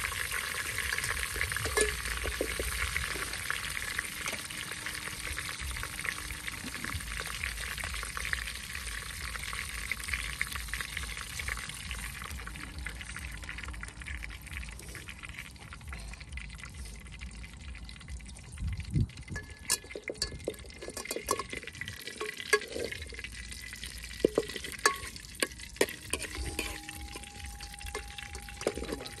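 Food frying in oil in a metal pot over a wood fire, sizzling steadily while a metal ladle stirs and scrapes the pot. The sizzle is strongest in the first half; later it is quieter, with frequent sharp clinks and scrapes of the ladle against the pot.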